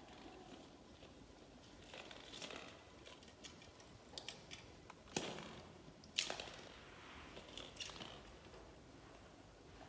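Faint rustling and light clicking of plastic ball-pit balls as a small monkey moves among them, with two sharper knocks about five and six seconds in.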